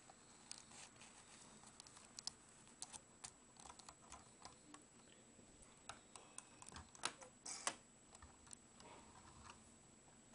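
Light, irregular clicks and rattles of plastic Lego pieces as fingers handle and work a Lego garbage truck model, with the loudest cluster of clicks about two-thirds of the way in.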